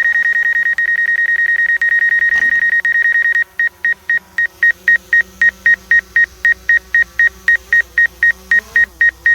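Loud electronic warning beep on one high pitch, held unbroken for about three and a half seconds, then pulsing about four to five times a second. Under it, the faint hum of a Mavic Air 2 drone on Master Airscrew stealth props hovering close by, wavering in pitch near the end.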